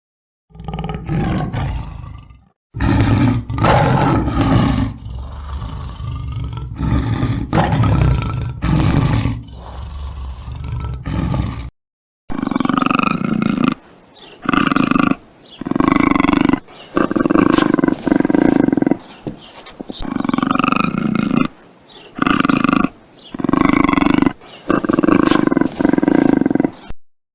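A large wild animal roaring over and over, in two different recordings joined about halfway through; in the second, the roars come in a run about once a second.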